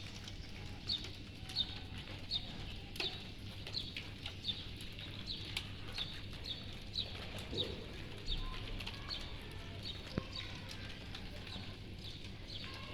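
A small bird chirping a short, high call over and over, about once a second, over a steady low hum.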